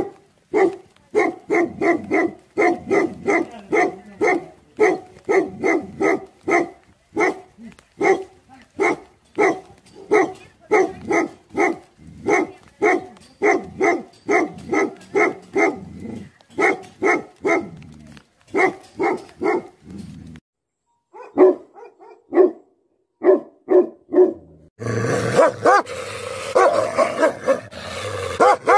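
Tibetan Mastiff barking deep and fast, about four barks a second in a long unbroken run. The barking breaks off briefly about twenty seconds in and comes back in scattered barks. Near the end it gives way to denser, noisier barking at close range.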